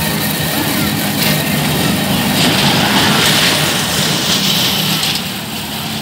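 Small kiddie roller coaster train running along its steel track past the camera: the hiss and rattle of its wheels on the rails swells from about two and a half seconds in and fades near the end. Under it runs a steady low machine hum.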